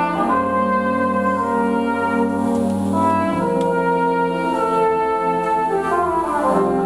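Concert wind band playing slow, held chords on brass and clarinets, the harmony changing three times.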